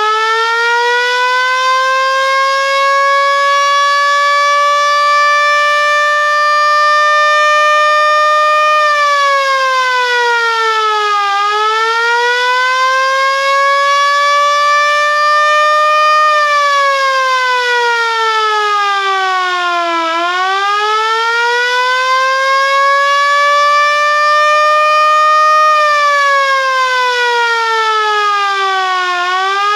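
Motoruch MSS-1 vehicle alarm siren wailing. It holds its top pitch, then slowly sinks and climbs back three times, one cycle every eight or nine seconds. A faint low hum comes in each time the pitch climbs.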